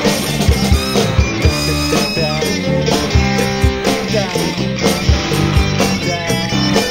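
Rock song with electric guitar over a steady drum beat, at a gap between sung lines.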